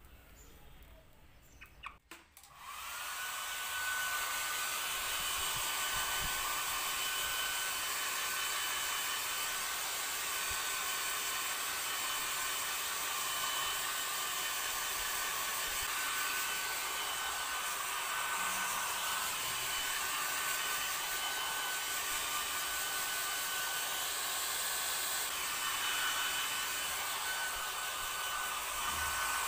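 Handheld hair dryer switched on about two seconds in, its motor whining up to speed, then running steadily with a rush of air and a high whine.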